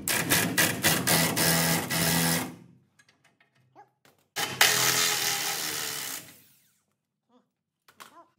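Cordless impact wrench driving the forcing screw of a torsion bar unloading tool, taking the tension off a torsion bar key. It runs in two bursts, the first about two and a half seconds long and the second, about four and a half seconds in, a little under two seconds.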